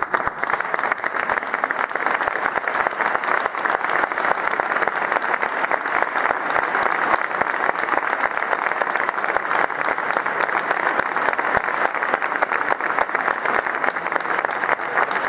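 Audience applauding: dense, steady hand-clapping from a crowd of people.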